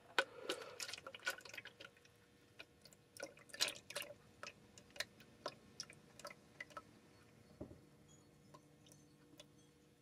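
Part A of FabriCast 50 casting resin pouring from a plastic jug into a paper cup in a thin stream: faint liquid trickling with many small scattered drips and ticks.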